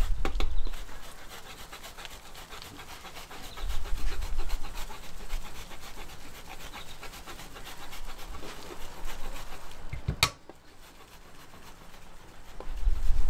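A Microplane rasp grater shredding a large block of cheese, a dry scraping rasp in quick repeated strokes. About ten seconds in there is a single sharp knock.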